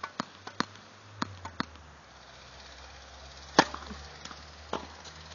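Tennis ball struck by rackets and bouncing on a hard court in a rally: a series of sharp pops, the loudest about three and a half seconds in.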